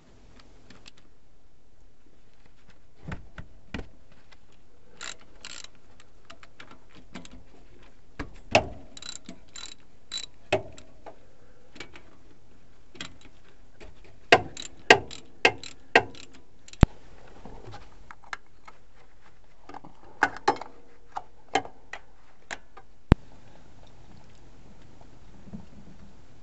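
Ratchet wrench clicking and metal tools knocking against the bolts of a motorhome's rear differential cover as they are loosened, in sharp irregular clicks and clanks. A run of four loud clanks about half a second apart comes a little past halfway.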